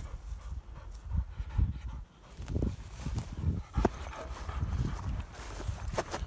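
A Braque Français pointing dog panting hard with its mouth open, in uneven low puffs. Two short sharp clicks, about four seconds in and near the end.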